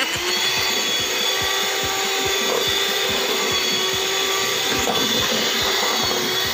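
Electric hand mixer running steadily at one speed, its beaters turning through frosting in a stainless steel pot, with a constant motor hum.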